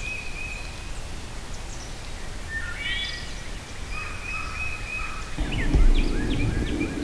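Songbirds singing: several trilled songs and quick descending phrases. A low rumbling noise starts about five seconds in and runs under them.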